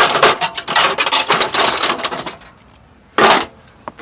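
Metal tools and loose parts clattering and rattling together for about two seconds, then one sharp knock about three seconds in.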